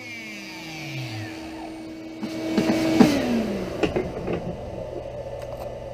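Shapeoko XXL CNC router's spindle whining at a steady pitch, the whine falling in pitch about three seconds in as the spindle slows, with a flurry of knocks and rattles around that point. A lower steady hum carries on afterward.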